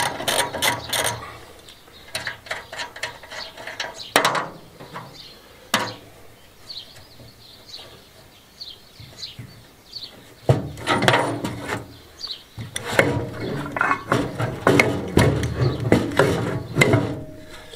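A ratchet spanner clicking rapidly for about a second as it undoes a wheelbarrow's axle nut. Then come scattered sharp knocks, and from about ten seconds in a busier stretch of metal clunks and rattles as the wheel is worked off its axle.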